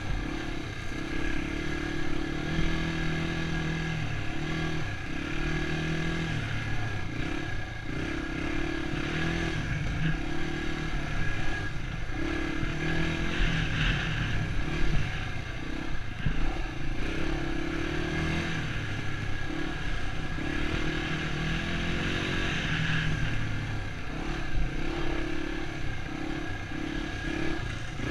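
Dirt bike engine revving up and easing off again and again, every second or two, as the rider works the throttle along a rough dirt trail, heard from the rider's own camera.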